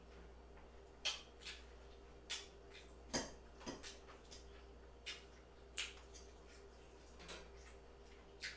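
Faint eating sounds: a fork picking at loaded fries on a plate and mouth sounds of chewing, heard as about ten short, scattered clicks and smacks over a faint steady hum.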